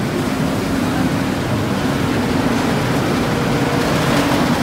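Steady city street noise: a continuous rumble of traffic and engines.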